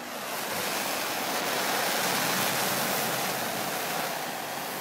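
A pile of leftover APCP rocket propellant scraps and dust burning with a steady rushing hiss, swelling over about the first second and then holding.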